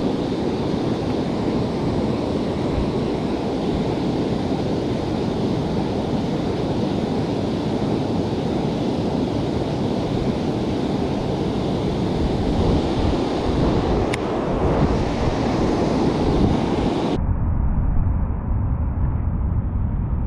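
Water rushing over a river weir, a steady wash of noise, with wind buffeting the microphone. Near the end the sound changes abruptly to a duller, muffled rumble carried mostly by low wind noise.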